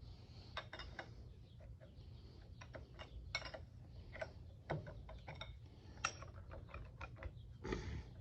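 Irregular small metal clicks and taps as parts of a Boye & Emmes lathe compound slide are worked loose and pried off by hand, with a duller knock just before 5 seconds and another near the end.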